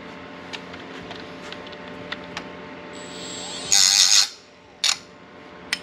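Metalwork on a small aluminum bracket: scattered light clicks and taps over a steady low hum, with one brief loud hiss about four seconds in.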